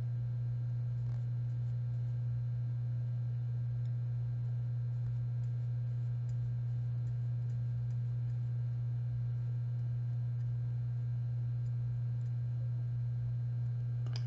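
Steady low hum, one even tone with faint overtones, with a few faint clicks scattered through it.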